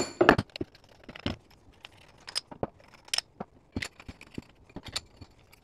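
Irregular clicks and clacks of hard objects being handled, the loudest in the first half-second and the rest spaced unevenly.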